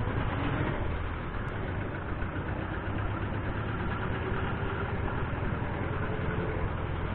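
Steady city traffic noise heard from a moving bicycle: vehicle engines running nearby over a constant low rumble.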